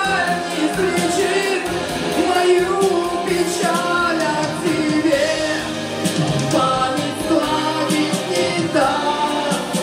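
A man singing a Russian-language song into a handheld microphone over instrumental accompaniment.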